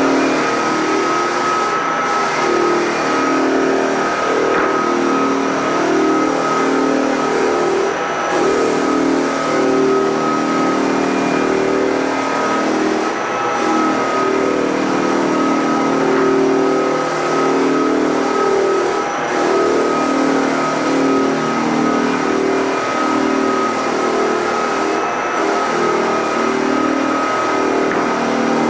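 Walk-behind floor sander running steadily as it sands a hardwood floor, its motor hum wavering slightly with a steady high whine above it.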